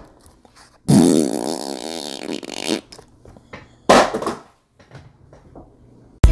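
A long buzzing raspberry blown with the lips, a fart-like sound of about two seconds, as a thumbs-down verdict on the product. A second, shorter burst of noise comes about a second later, and music starts at the very end.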